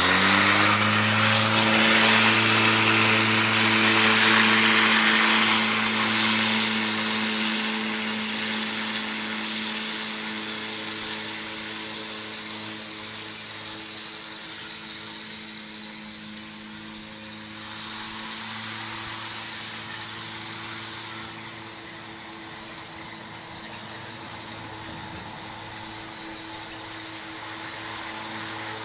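Earthwise 24-volt cordless electric lawn mower running steadily while cutting grass, a constant motor-and-blade hum with a whooshing hiss. It fades as the mower is pushed away and grows a little louder again near the end as it comes back.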